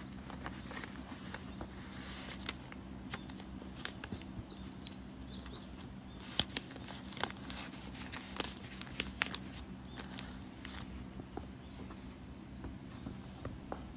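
A paper drawing and a plastic display sleeve being handled: crinkling and rustling with scattered sharp clicks and taps, busiest in the middle, over a steady low hum.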